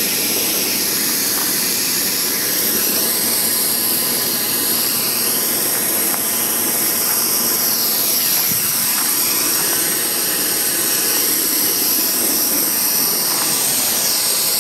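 Propane weed-burner torch burning with a steady hiss of gas and flame, its tone wavering slowly.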